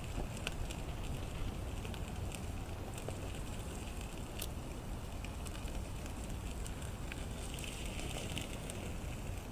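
Wood fire burning in a small folding wood stove, crackling with scattered sharp pops over a steady low rumble.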